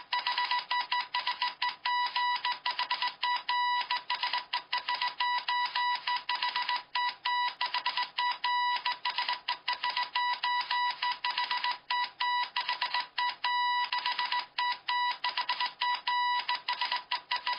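Electronic sound effect of rapid, irregular high-pitched beeping mixed with clicks, running at an even level without a pause.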